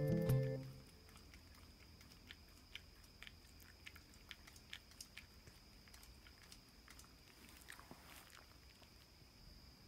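Faint, irregular smacking and clicking of a Shiba Inu licking and nibbling a cat's ear. Background music ends within the first second.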